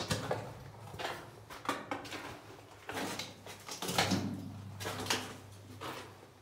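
Irregular footsteps and scuffs on the floor of a mine tunnel, about one or two a second, over a steady low hum.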